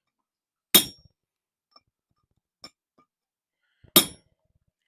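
Two blacksmith's hammer blows on steel at the anvil, about three seconds apart, each with a short metallic ring, as a mark is set in the bar to establish the bottle opener's tab.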